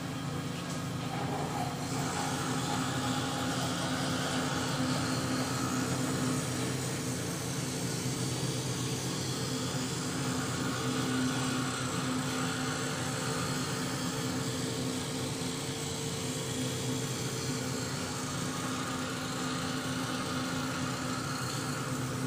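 Optical lens edging machine running: a steady motor hum with a hiss that comes up about two seconds in and holds.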